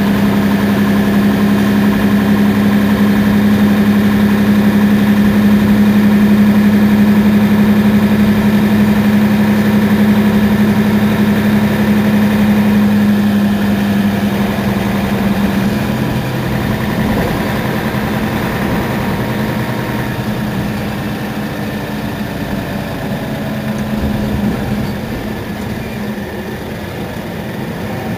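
Mercedes-Benz Citaro Facelift city bus engine idling at a standstill with a steady low hum. About halfway through the hum drops away and the idle carries on quieter.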